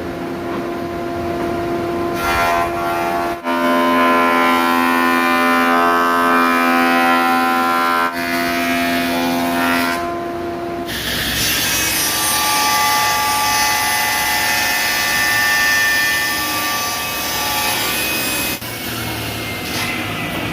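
Woodworking power tool running and cutting wood, with a steady motor whine over the noise of the cut. The sound changes abruptly several times.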